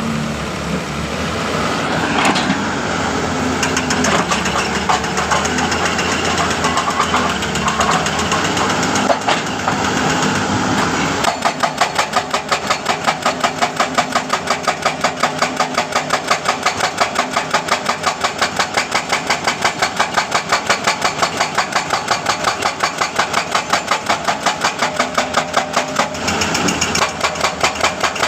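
Hitachi excavator's engine running, then its hydraulic breaker starting up about eleven seconds in and hammering at a fast, even rate of about five blows a second. The hammering breaks off briefly near the end and starts again.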